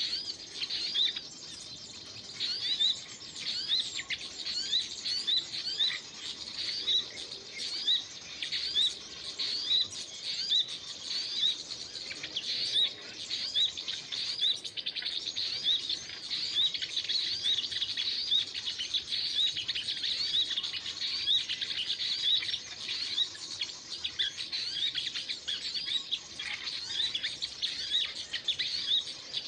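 Small songbird chirping: sharp high chirps repeated steadily about twice a second, with other birds' calls in the background.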